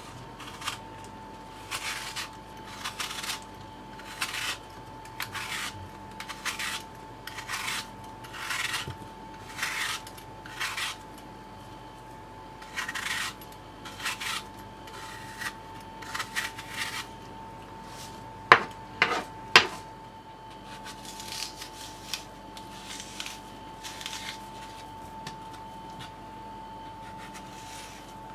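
Metal vegetable peeler scraping the skin off an apple in short rasping strokes, about one or two a second, with two sharp knocks a little past the middle. A faint steady high hum runs underneath.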